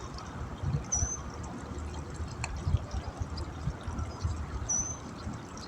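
Water trickling and pouring at the bank, over low rumbling thumps, with a sharp click midway and two short high chirps, about a second in and near the end.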